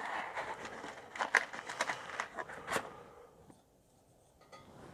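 A match struck and flaring, then several sharp clicks and clinks of metal as the Coleman 500 single-burner stove is lit and its generator is heated.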